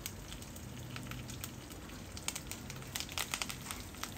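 Curry leaves, urad dal and whole spices frying in a little hot oil in a pan: a faint sizzle with scattered small crackles, more of them in the second half.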